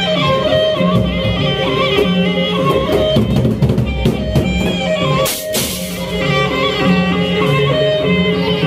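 Loud band music for a nyongkolan wedding procession: a melody of held notes over a steady drum beat. About five and a half seconds in there is a short crash of hiss.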